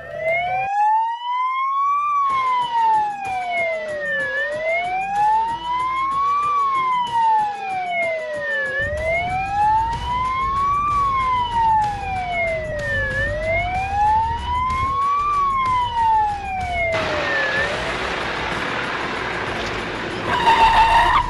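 Fire truck siren wailing in slow, even rise-and-fall sweeps, about four cycles of roughly four seconds each. It stops near the end, leaving a rumbling, hissing noise and a brief louder sound.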